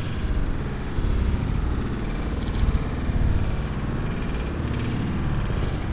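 Wind buffeting the microphone: a low, unsteady rumble with no clear pitch.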